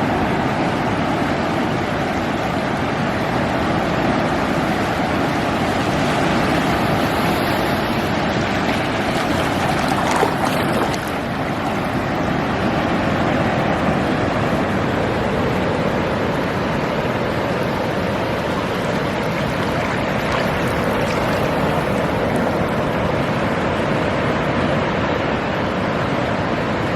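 Ocean surf washing onto a beach, a steady rush of noise that swells briefly about ten seconds in.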